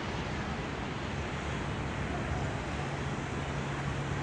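Harbourside ambience: steady wind and water noise, with a low engine hum from harbour boat traffic that grows stronger about three seconds in.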